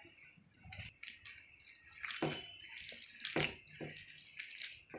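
A hand squeezing and mixing a wet mash of roasted bitter gourd and potato with mustard oil in a stainless steel bowl. It makes irregular wet squelches, with a few louder squishes in the second half.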